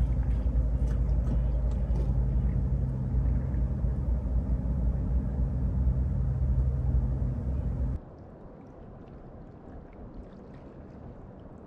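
A motor running steadily with a low, even hum that cuts off abruptly about eight seconds in, leaving quieter outdoor sound.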